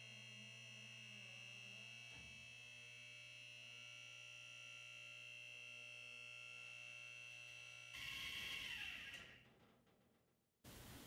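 Near silence: a faint steady electrical hum with a thin high whine, then a short rise of hiss about eight seconds in that fades away to dead silence, with faint hiss returning near the end.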